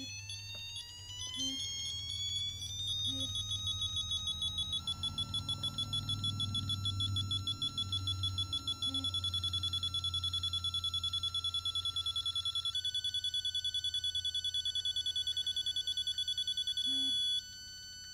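Milwaukee digital torque wrench's electronic beeper sounding as the wrench is pulled up to its 25 ft-lb setting. A series of tones steps up in pitch as torque builds, then becomes a steady, rapidly pulsing beep. Near the end it drops to a quieter steady tone, signalling that the target torque has been reached.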